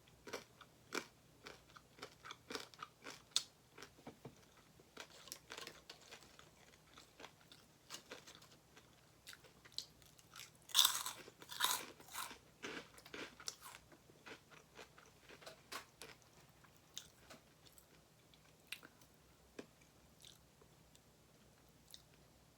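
Close-miked chewing and crunching of food, a run of short crisp crackles with the loudest burst of crunching about eleven seconds in.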